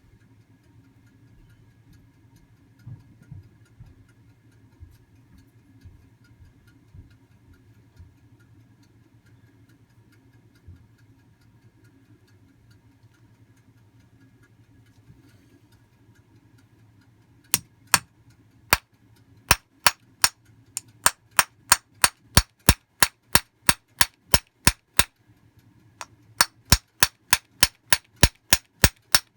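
Sharp metal taps, a tool being struck to knock down the jammed piston of a fuel distributor, about two to three a second. They start about 17 seconds in, pause briefly near 25 seconds, then go on. Before them only a faint hum and a few soft knocks are heard.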